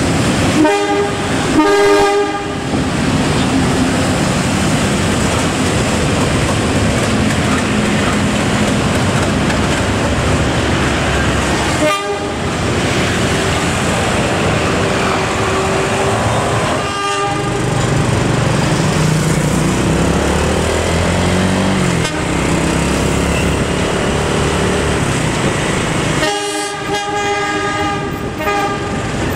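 Freight train of loaded ballast hopper wagons rolling past at street level with motorcycle and car traffic alongside. The diesel-electric locomotive's multi-tone air horn sounds for about two seconds near the start and again near the end.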